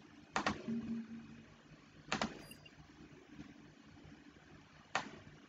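A few sharp clicks from a computer mouse and keyboard, two close together just after the start, two more about two seconds in and one near the end, over a low steady hum.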